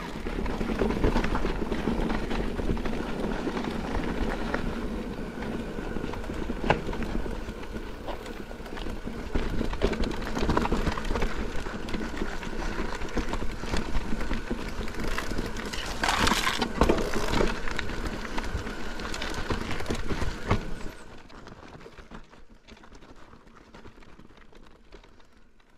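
Mountain bike descending a rough trail at speed: tyre noise on the trail surface with sharp knocks and rattles from the bike over bumps, under heavy wind noise on the microphone. The noise drops off abruptly about three quarters of the way through.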